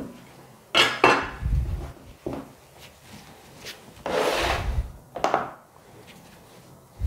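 Knocks and scrapes of panettone dough being cut in half and handled on the work surface and kitchen scale: two sharp knocks about a second in, a few dull thuds, then a longer scrape a little after four seconds and a shorter one just after five.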